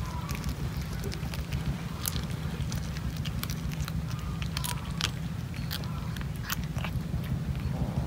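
A cat chewing and crunching raw fish, with irregular sharp clicks and crunches over a steady low rumble.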